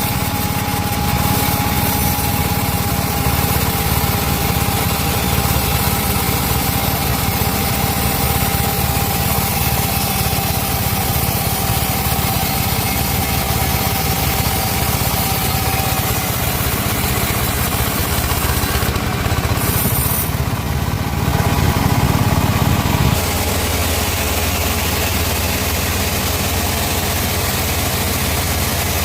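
Chainsaw running steadily while cutting teak wood. About three-quarters of the way through, the engine sound shifts and thins.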